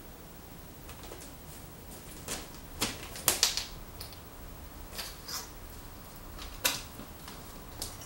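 Kitten playing: irregular rustles and light clicking taps of its paws and the string on plastic wrapping and floor. The loudest taps come about three seconds in and again near seven seconds.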